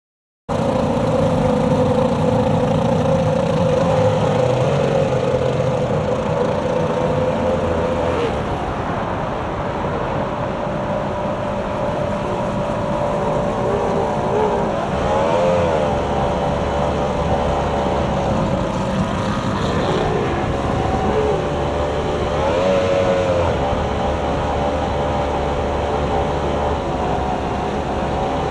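Formula 1 tunnel-hull race boat's outboard engine running, heard on board, over a rush of wind and water. The engine note holds steady, with its pitch dropping about eight seconds in and dipping and rising a few times later on.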